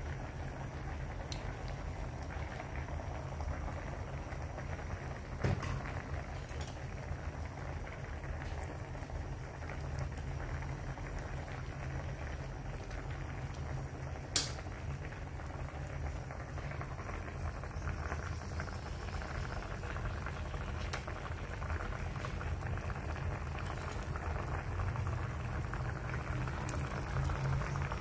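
Pot of soup with greens and shrimp at a rolling boil, bubbling steadily. Two sharp clicks stand out, about five seconds in and again near the middle.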